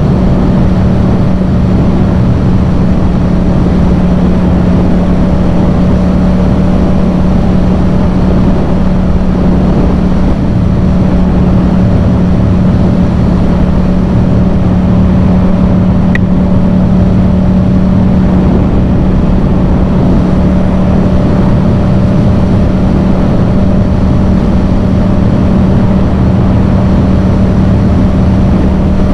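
Yamaha MT-07's 689 cc parallel-twin engine through a Yoshimura full exhaust, running at a constant speed with a steady, unchanging engine note.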